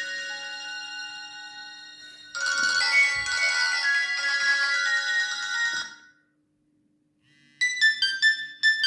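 Nokia X1-01 ringtones playing one after another. A melodic ringtone fades away, a second starts abruptly about two seconds in and stops about six seconds in, and after a short silence a third begins with short separate notes near the end.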